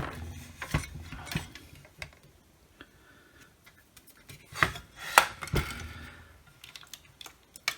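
Hard plastic and metal parts of a cordless circular saw being handled and fitted together: scattered clicks and knocks, with a cluster of sharper knocks about four and a half to five and a half seconds in.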